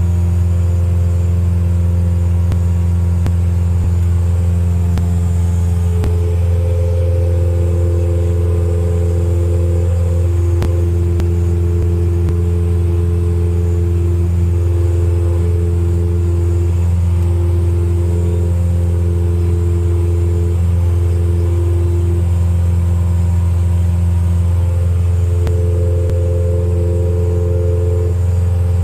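Light aircraft's piston engine running at a steady, unbroken low drone, with fainter higher tones that come and go over it.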